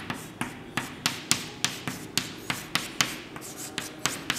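Chalk writing on a chalkboard: a quick run of sharp taps and short scratches, about four a second, as the strokes of the letters go down.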